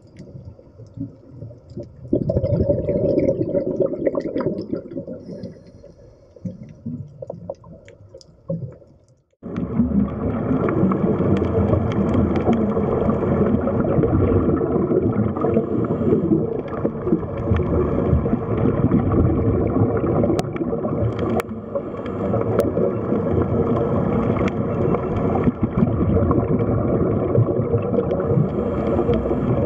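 Underwater sound picked up through a camera housing: a gurgling burst of bubbles that fades, then after a sudden cut a steady, dense rushing rumble.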